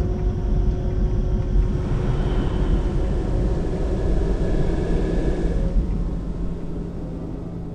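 Deep, steady sound-design rumble with a rushing noise that swells from about a second and a half in and cuts off sharply near six seconds, after which the rumble fades.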